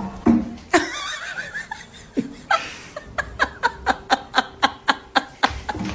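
A person laughing in a run of short, quick bursts, about four a second, through the second half.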